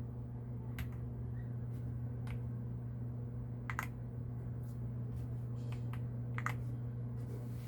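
Scattered single key presses on an AULA F99 mechanical keyboard: about ten separate clicks at uneven spacing, over a steady low electrical hum.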